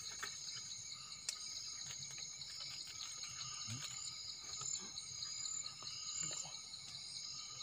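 Night chorus of crickets and other insects: steady high trilling with repeating pulsed chirps. There is one sharp click about a second in.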